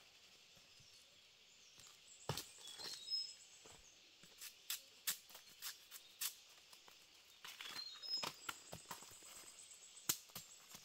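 Machete blade striking and stripping a freshly cut bamboo shoot, giving sharp, irregular snaps and knocks that start about two seconds in, mixed with dry leaves crackling underfoot. A few short, high bird chirps come through twice.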